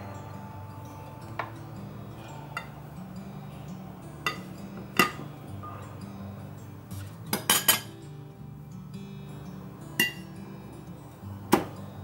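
Metal fork and spoon clinking against a glass dish and ceramic plate while bread is soaked in egg mixture: single sharp taps every second or two, with a quick run of clinks about halfway through. Soft background music runs underneath.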